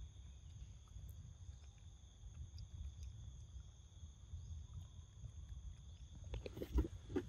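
Young macaque biting into a ripe papaya, a cluster of wet bites and smacks near the end, over a steady high insect drone.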